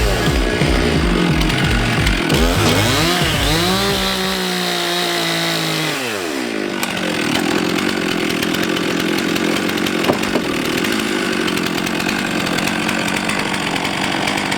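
Chainsaw ripping a large log lengthwise by hand, its engine pitch rising and falling over the first few seconds, then running steadily under load.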